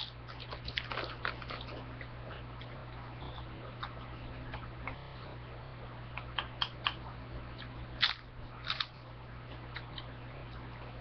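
Chips being bitten and chewed close to the microphone: irregular crisp crunches in clusters, the loudest about eight seconds in. A steady low hum runs underneath.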